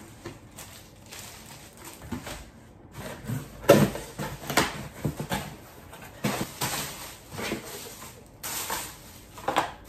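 Cardboard shipping box opened by hand and plastic-wrapped accessories pulled out: irregular rustling, crinkling and scraping of cardboard and plastic packaging, loudest about four seconds in.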